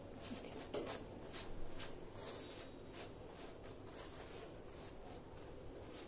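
Silicone pastry brush spreading butter over a hot naan in a pan: faint, soft brushing strokes, clearer in the first few seconds.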